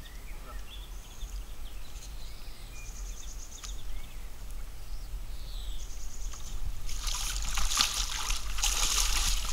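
Water splashing hard as a hooked carp thrashing at the surface is scooped into a landing net, starting about seven seconds in and lasting to the end; before that only faint water sounds.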